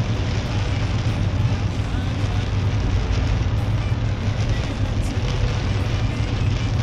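Steady road and tyre noise on a flooded road with rain beating on the car, heard from inside a Mercedes-Benz C-Class as it drives through heavy rain: a constant low rumble under an even hiss.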